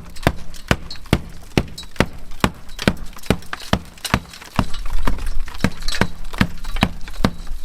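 A tool striking old, loose roughcast cement render on a timber stud wall in a steady series of sharp knocks, about two or three a second, as the hollow render is tested and broken off. A low rumble comes in about halfway through.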